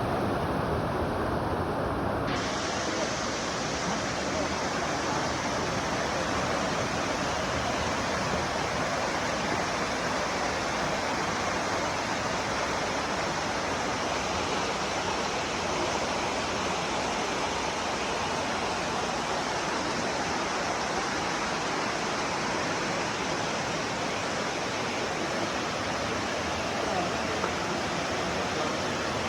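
Flowing water rushing steadily, an even unbroken hiss.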